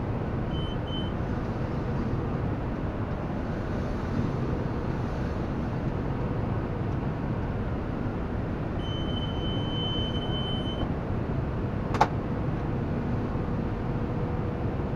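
John Deere tractor pulling a John Deere round baler through hay, a steady drone of engine and machinery heard from inside the cab. Two short electronic beeps sound near the start and a longer beep of about two seconds later on, and a single sharp click comes about 12 seconds in.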